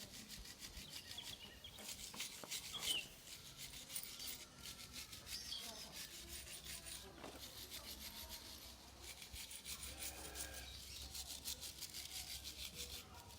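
Stiff brush scrubbing motorcycle engine parts in rapid back-and-forth strokes, in runs broken by short pauses.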